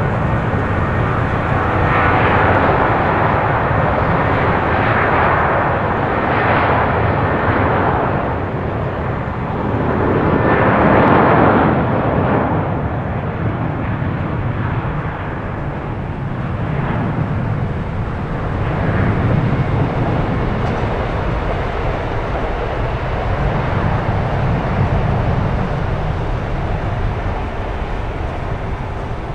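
Airbus A330-323 twin-engine jet airliner with Pratt & Whitney PW4000 engines: loud, continuous jet engine noise that swells and fades several times, loudest about eleven seconds in, then slowly easing off.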